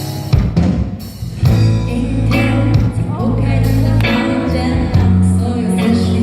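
Live pop music: a female singer's song with instrumental backing of sustained low chords and a steady beat.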